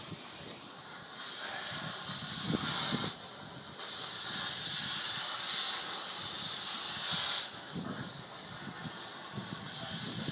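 Cutting torch hissing steadily as it cuts through the end of a steel beam, easing off briefly about three seconds in and again for a couple of seconds near the end.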